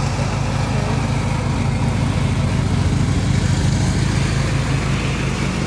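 Small lawn mower engine running steadily with an even, pulsing hum.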